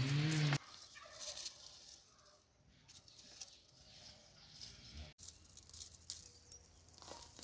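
A short, loud animal call with a bending pitch, ending about half a second in, followed by faint rustling and scattered small knocks.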